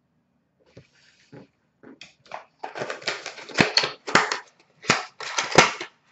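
Packaging being handled and opened by hand: a run of crinkling and crackling with sharp clicks, sparse at first and dense and loud through the second half.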